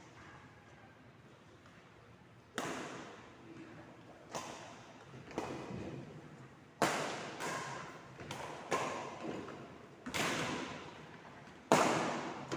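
A rally of ball-and-racket hits: about nine sharp knocks at uneven intervals of roughly a second, each ringing out with a hall-like echo.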